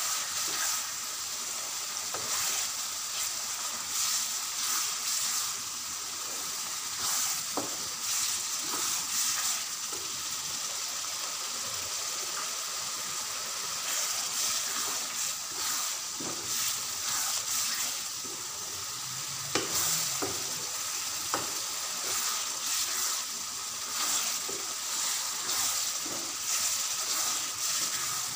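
Minced mutton and green peas sizzling in oil in a non-stick pan, with short scrapes and taps of a spatula stirring them again and again. This is the bhuna stage, the mince being fried down well before water is added.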